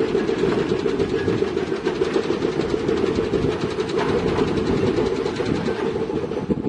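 Diesel earthmoving machine working, its engine running under a fast, steady metallic clatter that fades just after the end.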